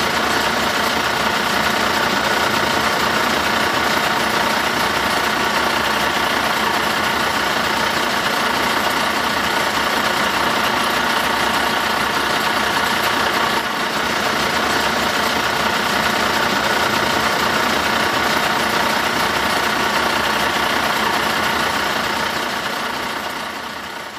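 Engine idling steadily, a looped engine sound laid over the picture, fading out at the very end.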